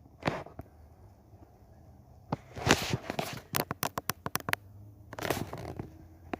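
A string of sharp clicks and taps, with a quick run of about eight in a second near the middle and a couple of brief rustles: fingers tapping and handling a tablet.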